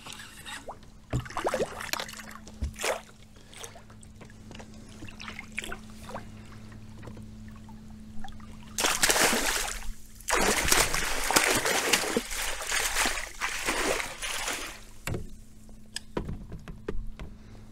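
A hooked northern pike splashing at the surface beside a kayak as it is netted, with light knocks and water sounds at first, then hard thrashing splashes in the landing net from about nine seconds in that die away near the end.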